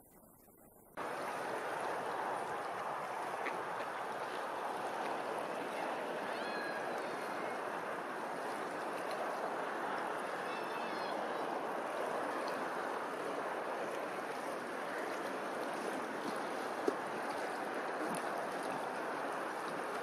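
Steady wash of open water, small waves lapping with wind over the surface, starting suddenly about a second in. A couple of faint high chirps come through around the middle, and there is a single sharp click near the end.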